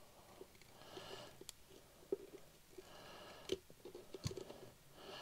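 Wire strippers clicking and snipping at a thin wire's insulation, a string of faint small clicks with a few sharper snaps, and soft breathing close to the microphone in between.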